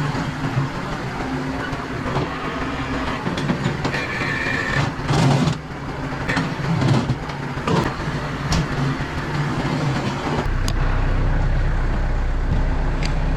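Engine of a farm machine running steadily while it cleans out a shed floor, with scraping and several sharp metal clanks. About ten seconds in the clanking stops and the engine settles to an even hum.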